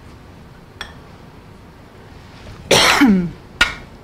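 A person coughs once, a loud rough burst with a falling pitch, followed about half a second later by a sharp click.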